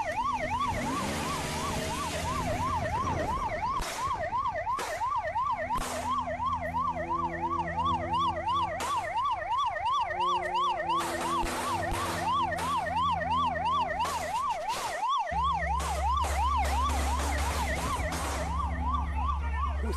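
Police siren on a fast yelp, wailing up and down about two and a half times a second, with a few sharp cracks scattered through it. A steady low hum joins in about fifteen seconds in.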